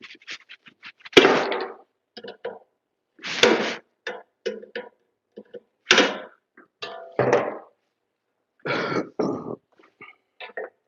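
Tin snips cutting out a hole for an electrical box: a string of irregular snips and crunches with small clicks between them. The loudest cuts come about a second in, around three and a half seconds, at six seconds and near nine seconds.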